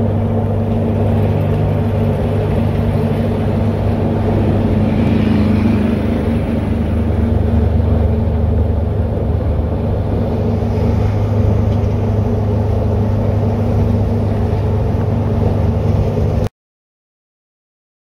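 Steady road and wind noise from a pickup truck at highway speed, heard from its cab through the open back window: a constant low hum with a rushing rumble over it. It cuts off suddenly to silence about sixteen seconds in.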